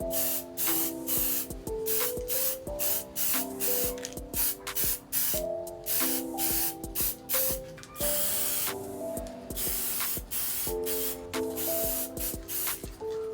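Spray paint hissing in repeated short bursts, with one longer pass about eight seconds in, as the bike is repainted; light background music plays underneath.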